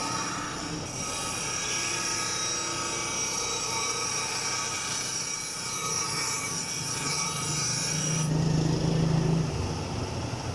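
Power grinding on steel: a steady high squeal over hiss. About eight seconds in the squeal stops and a lower hum rises briefly.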